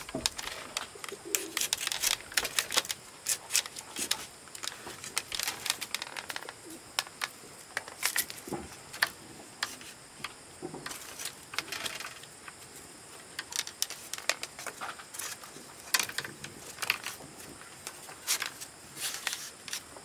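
A long run of sharp, irregular knocks and clicks, sometimes several a second, with short pauses between bursts.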